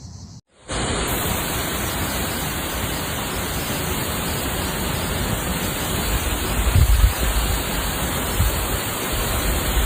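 Storm noise: a steady, loud hiss of heavy rain and wind, with gusts rumbling against the microphone about six to seven seconds in and again shortly after.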